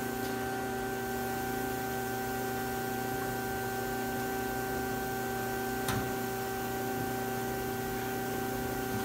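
Steady electrical hum made of several fixed tones, with one short knock about six seconds in.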